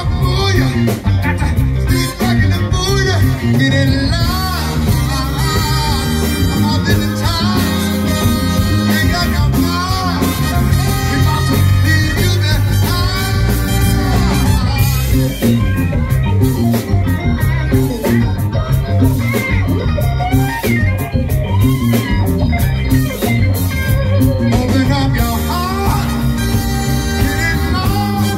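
Live band performing a song: a male singer over electric bass, electric guitar and drums, played loud and steady.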